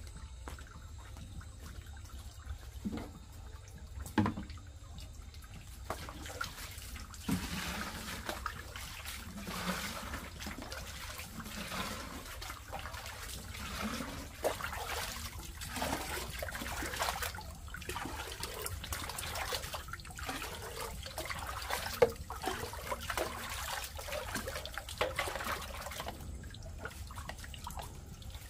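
Water splashing and trickling in irregular surges, starting about six seconds in and stopping near the end. A sharp knock comes once before the water starts and once partway through it.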